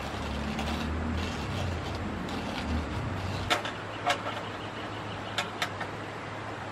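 Hand coffee grinder grinding beans with an uneven low rumble for about three and a half seconds. It stops and is followed by a few sharp knocks and clinks as things are set down on the table.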